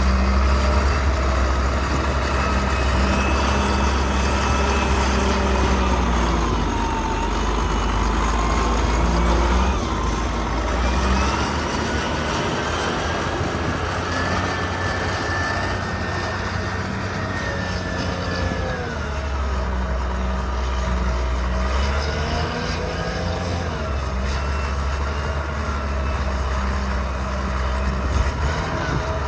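Engine of an old snow-plowing vehicle running under load, its pitch rising and falling as the revs change, with a heavy low rumble that eases off for stretches and comes back.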